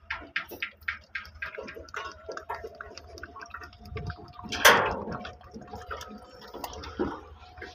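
Oil poured from a plastic jug into a metal funnel, splashing and gurgling, over a regular ticking about five times a second and a low hum. A single loud knock about four and a half seconds in.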